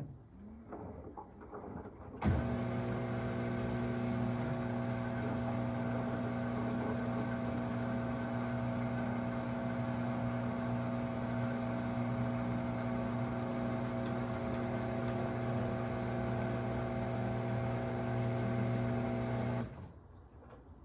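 Samsung WW25B6900AW front-load washer making a loud, steady buzz that starts abruptly about two seconds in, holds level and cuts off near the end. The owner says this buzz comes while draining when there is no water left to drain, and has persisted since the washer's first month.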